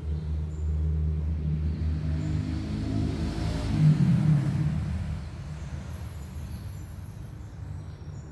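A motor vehicle's engine running, a low rumble that grows to its loudest about four seconds in and then fades, as of a vehicle passing by.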